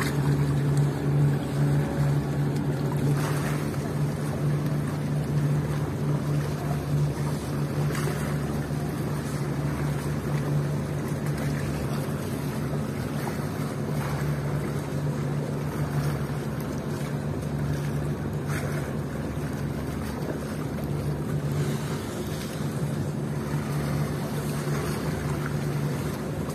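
Steady low drone of a large passenger ship's engines carried across open water, with waves washing against concrete breakwater blocks.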